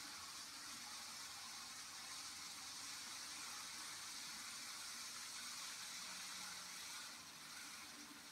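Z-scale model freight trains running on the track: a faint, steady whirring hiss of the tiny motors and wheels on rail, a little louder in the middle and easing off near the end.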